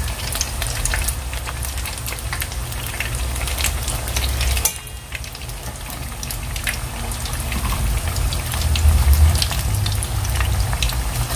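Pork empanadas deep-frying in hot oil: a steady sizzle full of small crackles and pops, with a low rumble underneath and a brief drop in level about halfway through.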